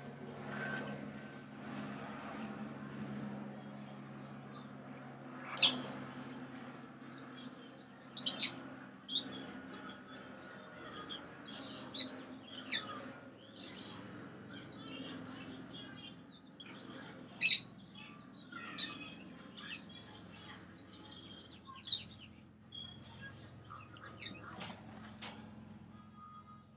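Small pet parrots chirping and twittering in a cage, with about half a dozen sharp, loud calls breaking out over the chatter. A faint steady low hum runs underneath.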